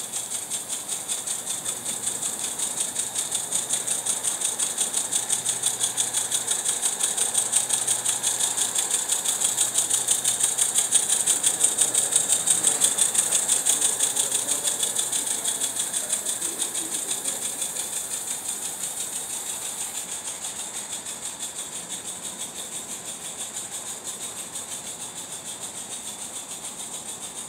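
Live-steam Ruby model locomotive chuffing rapidly with a hiss of steam, the quick even exhaust beats growing louder as it draws close, peaking about halfway through, then fading as it moves away.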